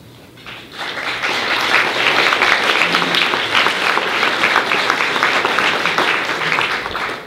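Audience applauding. The clapping starts about a second in and breaks off near the end.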